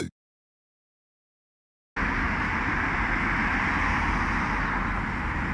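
Silence for about two seconds, then steady road traffic noise from cars passing on a street.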